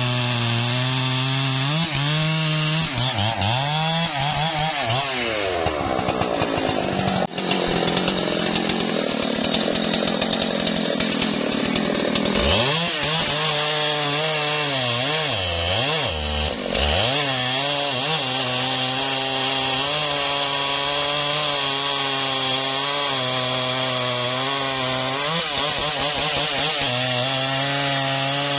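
Large Stihl two-stroke chainsaw running at high revs while cutting through the thick trunk of a felled rain tree. The engine pitch sags and recovers as the load changes, climbs into a higher-revving stretch for several seconds, then dips briefly a few times before running steady again.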